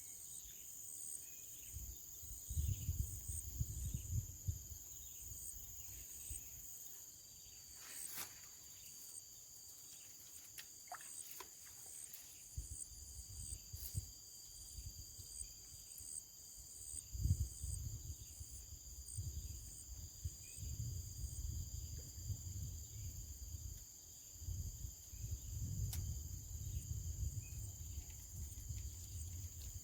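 Insects chirping and buzzing steadily outdoors: a high continuous drone with rows of rapid pulsed chirps above it. A low rumble on the microphone comes and goes, and there are a few sharp clicks.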